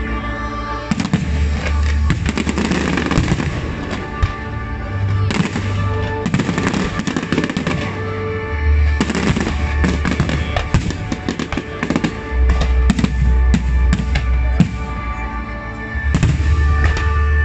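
Aerial fireworks shells bursting and crackling in quick volleys over music with sustained bass notes.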